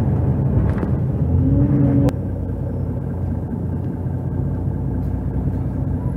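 Engine of a 2005 Mercedes-Benz O530 Citaro city bus with Voith automatic gearbox, heard from inside the passenger cabin as the bus slows to a stop. A short rising whine ends with a click about two seconds in, and the engine note drops to a quieter, steady idle.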